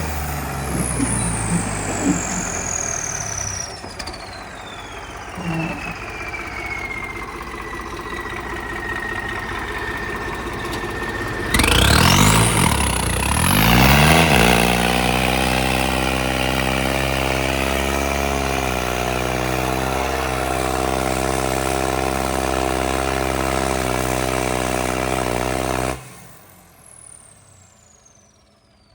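Tractor engine starting about eleven seconds in with a rising rev, then running steadily before cutting off abruptly near the end. Before it starts, a high whistle falls slowly in pitch.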